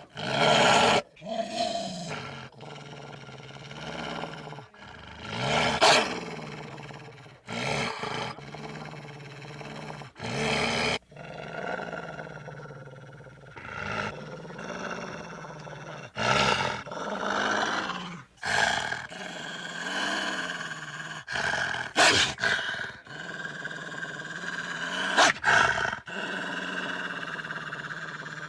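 A string of animal roar and growl sound effects played one after another, each breaking off abruptly into the next.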